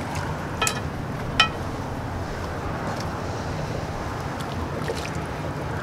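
Metal tongs clinking twice against a cast-iron Dutch oven, under a second apart, each with a short metallic ring, followed by a few fainter ticks, over a steady low rumble.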